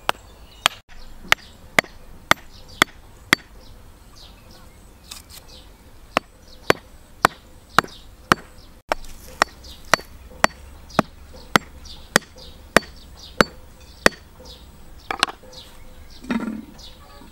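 Hatchet striking the tops of upright bamboo tubes, driving them into the ground: sharp wooden knocks about two a second, a half-dozen, then a pause of about three seconds, then a longer run. Birds chirp in the background, and near the end a softer clunk as the tools are set down.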